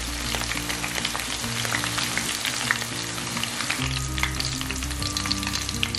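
Flour-battered chilies deep-frying in a wok of hot oil: a dense, steady sizzle full of small crackling pops, with chopsticks stirring them at the start.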